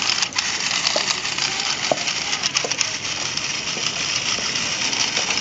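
Small wheeled robot's electric drive motors and gears running as it drives forward, a steady busy whir with a few faint ticks.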